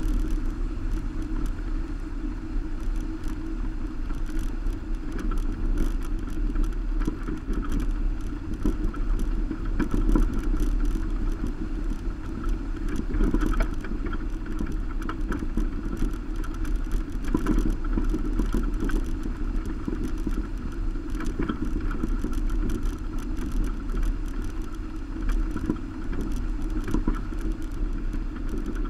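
Subaru Baja driving along a gravel road, heard through a camera mounted on its roof rack: a steady rumble of road and wind noise, with frequent small ticks and rattles throughout.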